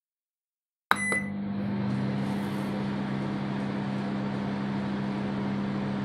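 Microwave oven starting up. After a silent start, there is a sharp click and a short high beep about a second in, then the oven's steady low hum as it runs.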